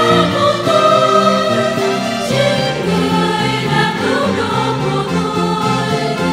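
Mixed church choir singing a Vietnamese hymn in parts, holding sustained notes with no break.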